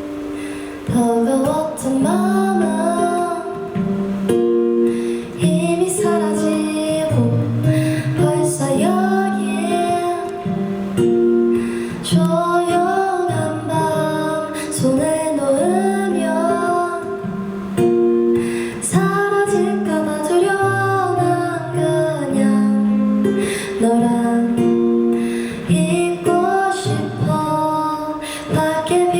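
A woman singing with strummed acoustic guitar accompaniment, a live concert performance.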